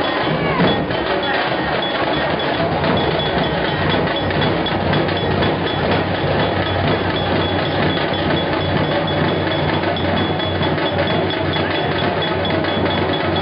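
Loud, fast, unbroken drumming, dense with sharp strokes, as from the dhol and tasha drums that are played for a palkhi dance, over the noise of a crowd.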